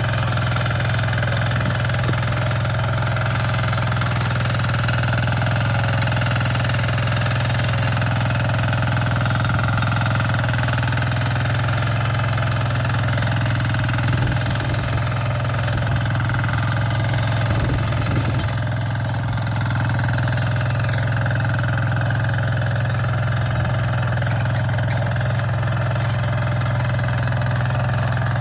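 Engine of a Yağmur YET300 rotary tiller running steadily at a constant speed.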